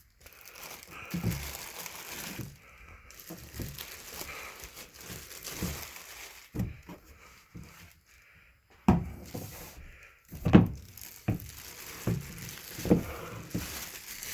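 Plastic packaging crinkling and rustling while the plastic parts of an O-Cedar spin mop bucket are handled and unpacked, with irregular knocks and two sharper knocks about two-thirds of the way in.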